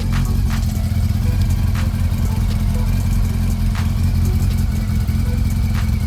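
Honda CB400 Super Four Spec 3 inline-four engine idling steadily, with a sharp tick every second or two at irregular spacing. The owner suspects the ticking comes from the cam timing chain, possibly a failing chain tensioner.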